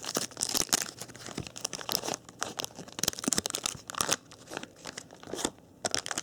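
Waxed-paper wrapper of a 1987 Topps baseball card pack being torn open and crinkled by hand: irregular crackling and tearing rustles.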